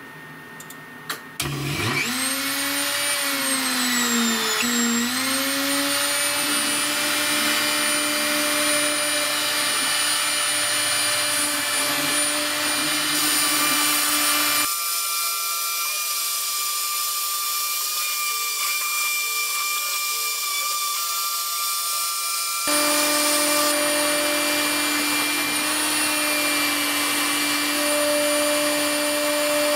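A CNC router's spindle motor and dust-extraction vacuum start about a second and a half in. The spindle's whine rises, dips briefly and then holds a steady pitch while a 2 mm diamond-cut end mill cuts fibreglass sheet. For about eight seconds past the middle the lower hum drops away, then returns.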